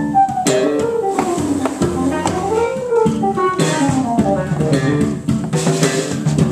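Live band playing: a quick melodic line over bass and drums, with regular drum and cymbal hits.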